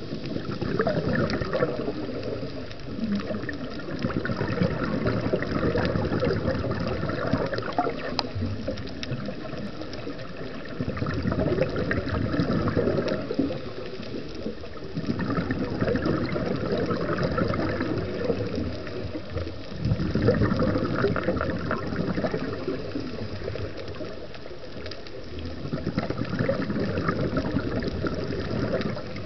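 A scuba diver's regulator breathing heard underwater through the camera housing: a bubbling rush of exhaled air swells every four to five seconds over a steady low rumble of water.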